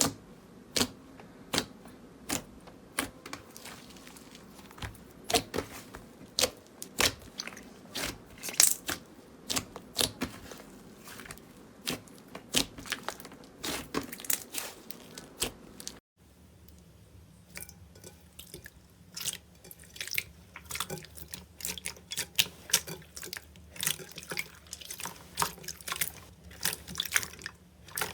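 Slime being handled, making many irregular sharp pops and crackles. The sound breaks off about sixteen seconds in and carries on with a different background, as one slime clip gives way to another.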